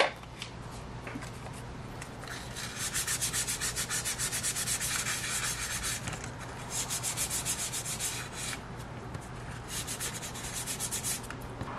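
Something rubbed back and forth on a small square of red sandpaper in three runs of quick, scratchy strokes, with a sharp click right at the start.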